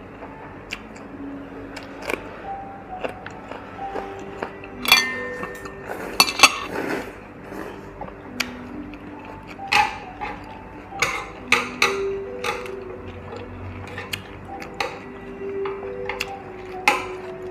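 Scattered clinks and taps of metal spoons and tongs against bowls and a grill plate during a meal, several sharp ones standing out, over soft background music.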